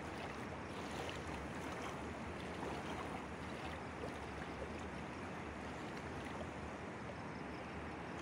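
Flowing river water, a steady even rushing.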